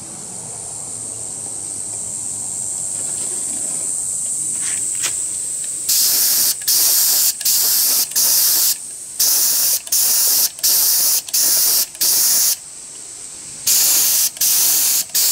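High volume, low pressure (HVLP) spray gun spraying clear finish in short trigger bursts of hiss, each about half a second, in quick succession from about six seconds in. Before that a quieter steady hiss slowly builds, and there is a pause of about a second before the last run of bursts.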